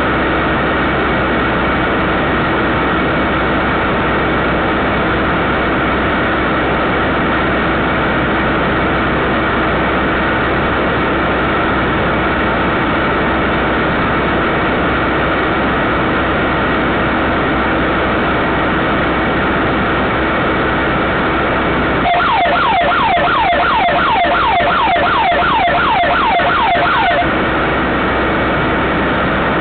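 A steady electrical hum and hiss throughout. About 22 seconds in, a security siren sounds for about five seconds as a fast repeating falling wail, about three sweeps a second, then cuts off.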